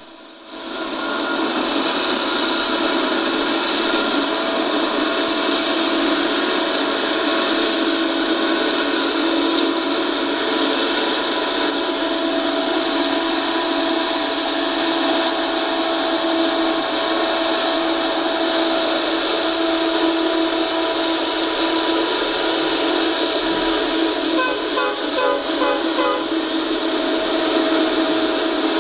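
Norfolk Southern diesel locomotives running, a steady drone with several held whining tones. It sounds thin and boxy, as it is played through a television speaker and recorded again.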